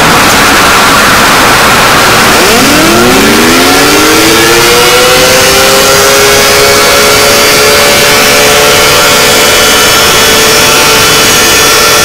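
Very loud, harsh static hiss under a steady high tone; about two and a half seconds in, a siren-like alarm tone winds up in pitch and then holds steady.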